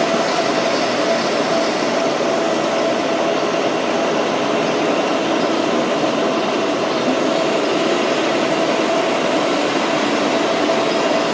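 Q9C floor grinding machine running together with an industrial vacuum cleaner: a steady, unbroken machine hum with a constant mid-pitched whine.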